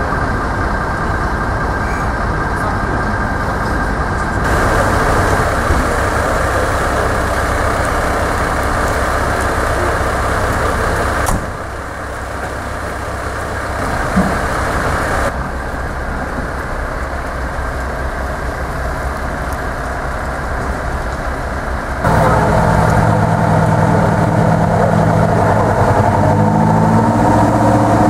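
Fire trucks' diesel engines idling steadily, the sound shifting abruptly several times. In the last quarter a louder truck engine sets in with a steady pitched drone as the aerial ladder truck moves past.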